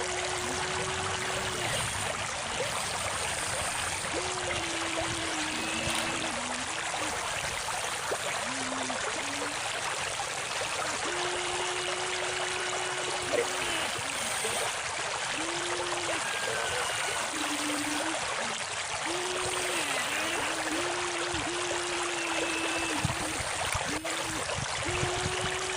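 Steady rush of flowing river water, with the small electric motors of RC excavators humming on and off in short spells over it.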